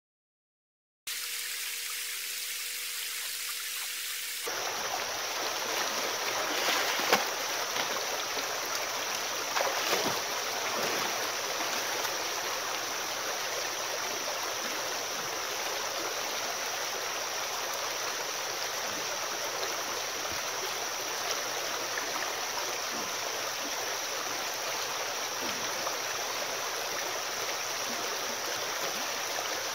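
Shallow creek water rushing and babbling steadily over rocks and around a wader's legs, with a couple of brief sharp splashes or knocks about a quarter and a third of the way through.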